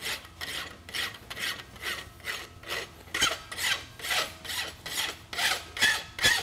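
Hand file rasping along the edge of a forged steel horseshoe clamped in a vise, in steady back-and-forth strokes about two to three a second that grow louder toward the end: final clean-up filing of the shoe.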